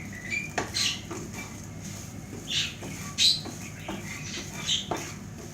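Spatula scraping and tapping against a hot frying pan while scrambled eggs are stirred, in irregular scrapes and clicks.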